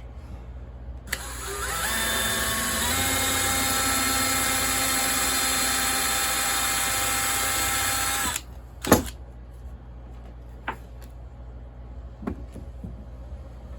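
Electric drill running for about seven seconds with a 3/16-inch bit, drilling out a rivet on a steel chainsaw bar's sprocket nose; its pitch steps up slightly early on, then holds steady until it stops. A sharp knock follows, then a few light clicks.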